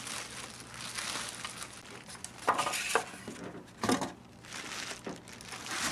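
Plastic bag and styrofoam packing rustling and crinkling as a boxed gumball machine is unpacked, with a few sharper knocks as it is handled.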